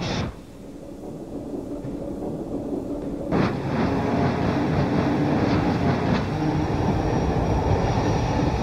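High-speed train running at speed: a rumble that builds for about three seconds, then a sudden loud rush as it sweeps past, holding steady with a thin high whine on top.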